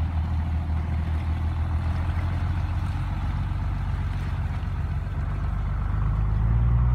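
An engine running steadily with a low hum, getting louder over the last second.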